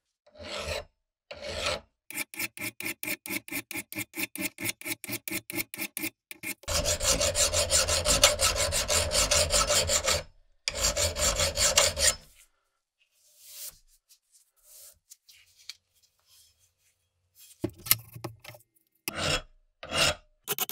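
Hand file rasping across the steel bit of a Van Camp hewing hatchet, filing the edge. Runs of quick, even strokes, about six a second, that make the blade ring, a continuous stretch of filing in the middle, then slower, spaced single strokes near the end.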